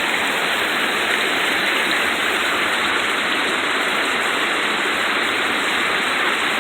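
Steady rushing of a rocky brook and its waterfalls: water running constantly over stones, with no change in level.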